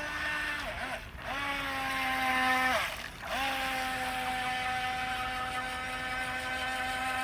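Electric motor of a radio-controlled toy speed boat whining at high throttle, in three runs: a short one, a longer one, then a steady run of about four seconds. Each run starts and stops abruptly with a brief slide in pitch.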